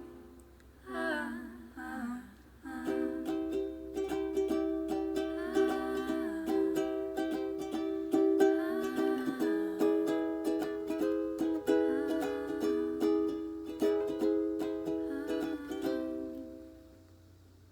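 Ukulele playing the closing instrumental bars of a song, strummed and picked chords that fade out near the end.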